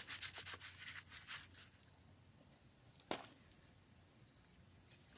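Dry potato plant stems, leaves and soil rustling and crackling as they are handled, in quick irregular bursts that die away about two seconds in, with one sharp click about three seconds in.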